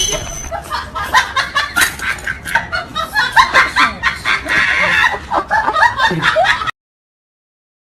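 A rapid, overlapping jumble of short, high-pitched, laughter-like cries that cuts off suddenly about two-thirds of the way through.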